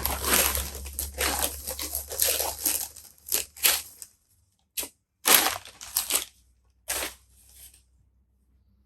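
Packaging being pulled off a camera by hand: wrapping crinkling and tearing, steady for about four seconds, then a few short rustles.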